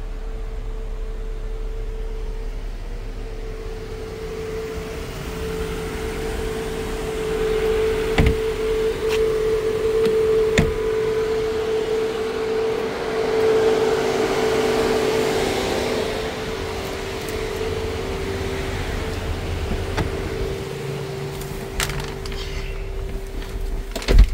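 Steady mechanical hum from the Ineos Grenadier: a constant droning tone under a rushing noise that swells in the middle, with a few sharp clicks and a knock near the end.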